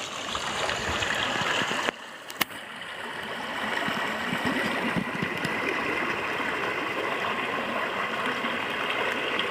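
Spring-fed stream running steadily over rocks, with a short dip in the sound and a single click about two seconds in.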